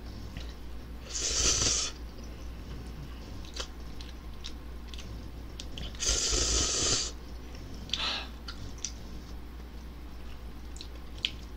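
Instant ramen noodles slurped twice, about a second in and again about six seconds in, each a short hissing slurp. Soft chewing and small mouth and utensil clicks come between.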